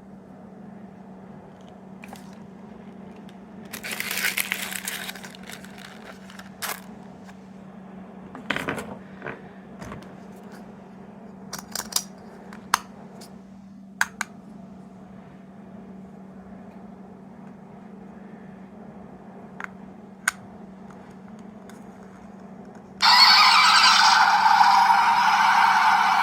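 Plastic capsule toys being handled, with a rustle and scattered light clicks over a steady low hum. Near the end a small sound-effect toy suddenly starts playing a loud recorded sound through its tiny speaker.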